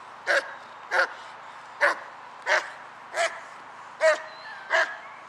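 German Shepherd barking at a protection-training helper while held back on a line: seven sharp, evenly spaced barks, about one every two-thirds of a second.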